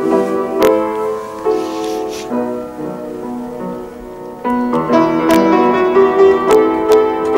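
Slow piano music: held chords and single notes, growing louder about halfway through.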